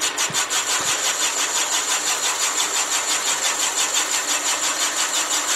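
Van Norman boring bar running with its cutter taking a cut in the cast-iron cylinder wall of a Willys L-head engine. It makes a steady machine sound with a high whine and a fast, even pulsing, a sound the machinist says is pretty good, meaning the tool is getting a true cut.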